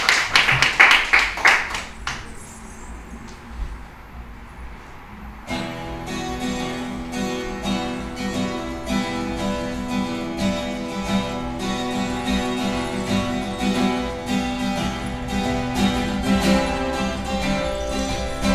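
Applause dying away in the first two seconds, then a short hush, then a 12-string acoustic guitar starts playing about five seconds in, plucked notes ringing on steadily.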